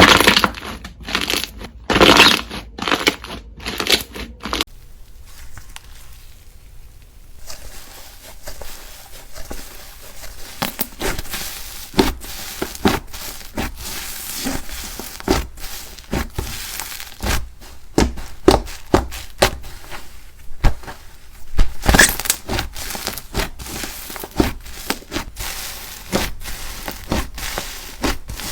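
Slime being squeezed, stretched and poked by hand: a dense run of crackles, pops and crunchy clicks, the texture changing a few seconds in.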